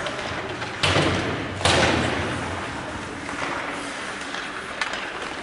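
Two loud bangs against the hockey rink's boards and glass, a little under a second apart, each ringing on in the arena's echo. A lighter sharp crack follows near the end.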